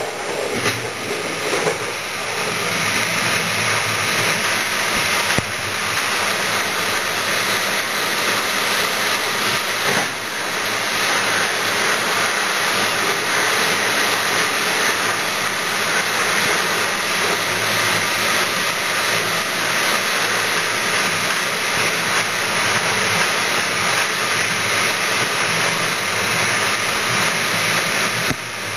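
Steady rushing running noise of an electric train travelling at speed on an electrified main line, heard from inside the driver's cab.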